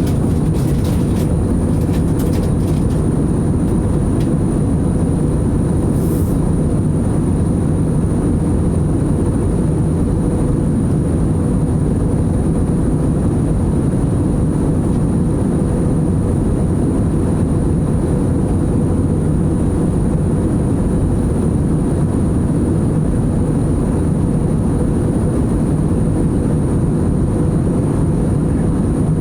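Steady cabin noise of a jet airliner in flight: engine and airflow noise, deep and even, with a faint steady hum and a thin high whine over it.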